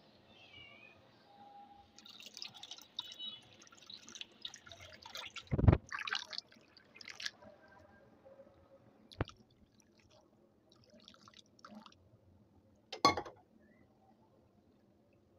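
Cold water pouring and splashing into a plastic bowl of cooked sabudana (tapioca pearls) as they are rinsed to cool them, in uneven spurts. A dull thump against the bowl about five and a half seconds in is the loudest sound, with another about thirteen seconds in.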